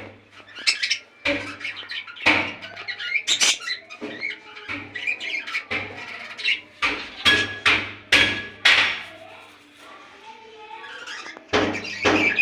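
A flock of budgerigars chattering and squawking in many short, sharp calls, thinning out for a moment near the end before picking up again.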